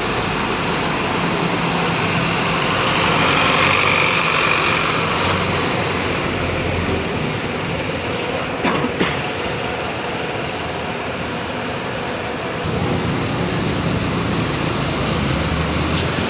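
Mercedes-Benz OF-1721 bus's four-cylinder diesel engine running. A hiss comes a few seconds in and two sharp clicks about nine seconds in. The engine sound eases off from about seven seconds and picks up again near thirteen seconds.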